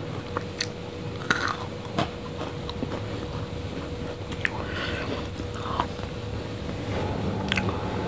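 Close-miked eating sounds: a metal fork clicks several times as it cuts into a soft chocolate cream cake, with chewing and wet mouth sounds in between.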